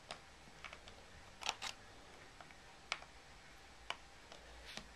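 Scattered light metallic clicks and ticks of a small screwdriver working the screws of a MacBook's RAM cover in the battery bay, about seven in all. The loudest pair comes about one and a half seconds in.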